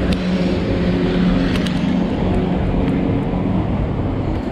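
Steady low mechanical hum over a rushing noise, with a few light taps of footsteps on concrete stairs.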